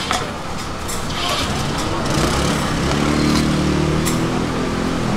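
A motor vehicle's engine passing on the street, a steady hum that grows louder about two seconds in, with a few light knocks from the cleaver and hands on the steel worktable.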